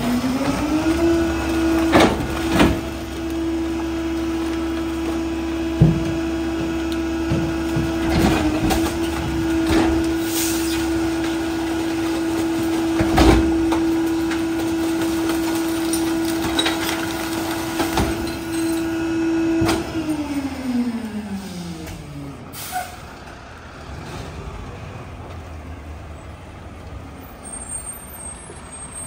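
Garbage truck's diesel engine revving up for the rear-loader packer, holding a steady high pitch while the split packer's hydraulics cycle, then winding back down to idle about 20 seconds in. Sharp metal clanks and bangs from the hopper and the dumped bins come through the first part.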